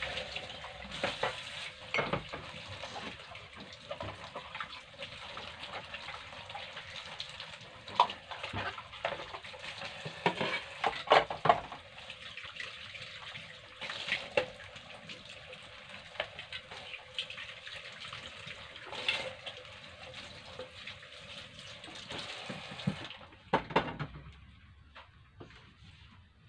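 Kitchen tap running into a metal sink while dishes are washed and rinsed, with plates clinking against each other and the sink now and then. The water shuts off suddenly about 23 seconds in, followed by a last clatter of dishes.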